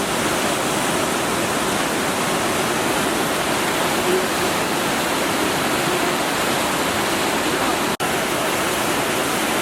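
Fast-flowing floodwater rushing steadily, a loud even wash of moving water; the sound cuts out for an instant about eight seconds in.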